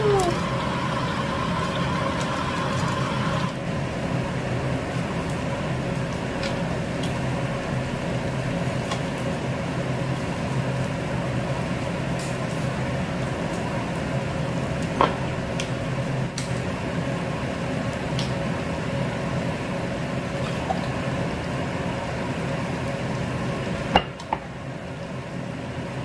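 Steady hum of a running kitchen appliance or fan. A higher hiss drops away a few seconds in, and there are a few light clicks.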